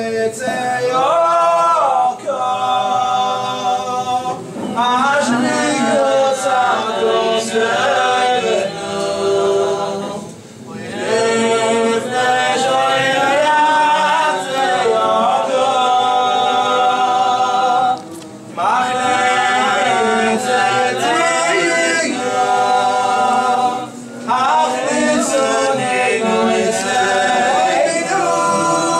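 Men's voices singing a Selichot prayer melody together, unaccompanied, in long phrases with brief pauses between them.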